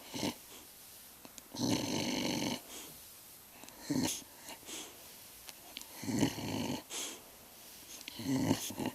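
A sleeping pet snoring and grunting: three drawn-out snores, each under a second long, about two seconds in, about six seconds in and near the end, with short snorts between them.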